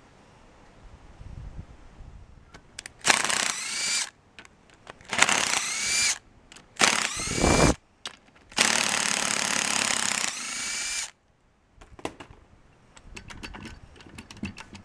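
Power tool cutting through the steel shell of a Copeland ZR61 scroll compressor, in four bursts of about one to two and a half seconds each, the last the longest. A few light clicks and knocks follow near the end.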